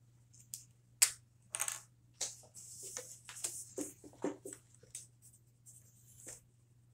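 A sharp click about a second in, then a felt-tip marker rubbing across paper on a tabletop in short, irregular scratchy strokes.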